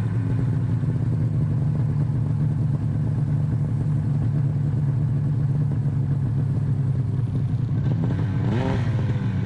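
Snowmobile engine idling steadily, with a brief rev that rises and falls near the end.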